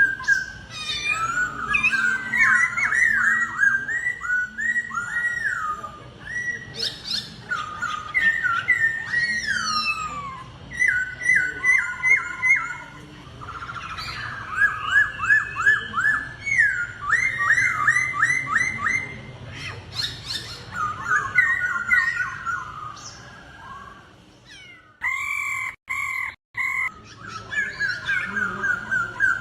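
Laughingthrush (khướu) singing in competition with loud, varied whistled phrases. Each phrase is a run of quick repeated notes that slide up and down, with short pauses between phrases. The sound drops out and cuts briefly near the end.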